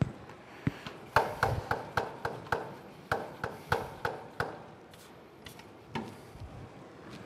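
Hand-pumped pressure sprayer being pumped up: a run of about a dozen short, squeaky clicks, roughly three a second with a brief pause midway, as pressure is built in the bottle. A couple of single knocks come before and after.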